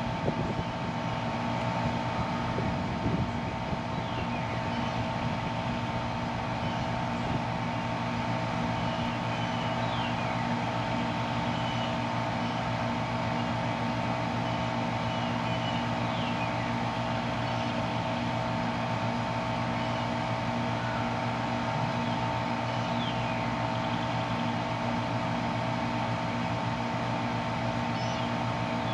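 Steady machine hum with a low electrical drone and a higher steady whine, unchanging throughout, with a few faint short high chirps over it.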